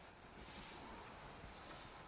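Faint rubbing of a cloth duster wiped across a chalkboard, with a couple of soft swishes.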